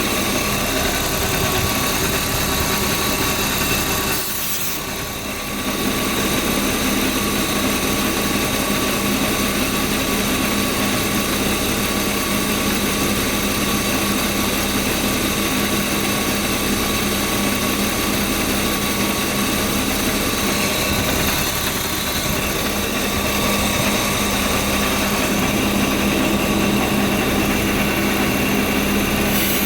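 BMW E36 328i's straight-six engine idling steadily, with a brief dip in level about four seconds in.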